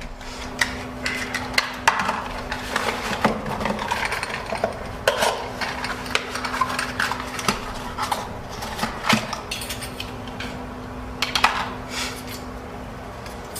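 Irregular clicks, taps and clatter of hard computer parts being handled, with a faint steady hum underneath.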